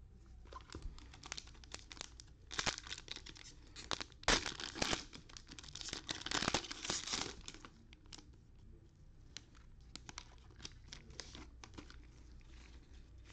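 Foil trading-card pack wrappers being torn open and crinkled by hand. The loudest tears come about two and a half, four and a half and six to seven seconds in, followed by lighter crinkling and rustling.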